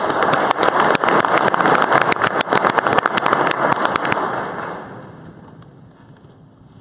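Audience applauding, a dense patter of hand claps that dies away after about four and a half seconds.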